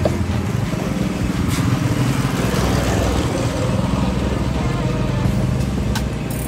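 An engine running steadily, with a few short clicks over it.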